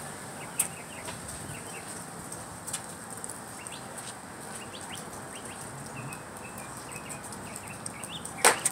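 Small birds chirping in short, scattered calls over a steady background hiss, with a sharp knock near the end.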